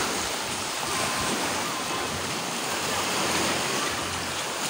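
Surf from the high tide washing up over the sand and shells: a steady rush of shallow waves and foam.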